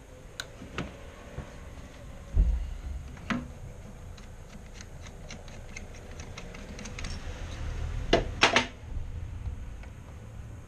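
Clicks and knocks of a MIG welding torch being handled and its neck worked on: a dull thump about two and a half seconds in, a run of light ticks in the middle, and a few sharper clicks near the end.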